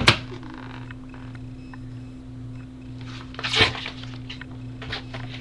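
Steady low electrical mains hum, with a short rustle about three and a half seconds in and a few faint clicks near the end.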